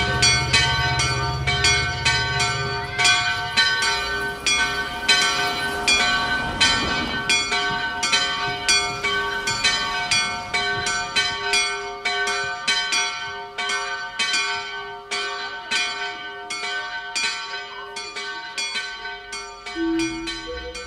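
Church bells pealing, several bells struck in quick, overlapping succession with long ringing tones, growing gradually quieter; an organ begins to sound near the very end.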